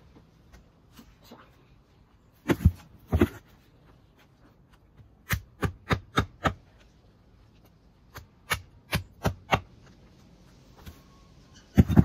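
Meat cleaver chopping through pheasant legs and necks on a tiled table: a dozen or so sharp chops in short runs, first two, then five in quick succession about a third of a second apart, then four more, with another near the end.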